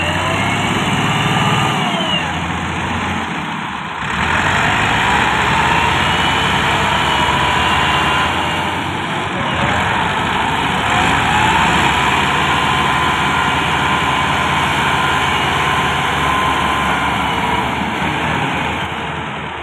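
Massey Ferguson tractors' Perkins diesel engines running hard, pulling a trailer loaded with sand. A high whine sits over the engine noise and rises in pitch about four seconds in and again about eleven seconds in as the engines rev up.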